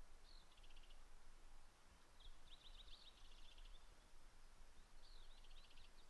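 Faint, repeated songs of a small songbird: a short slurred note followed by a rapid trill, three times, about two and a half seconds apart. A low rumble runs underneath.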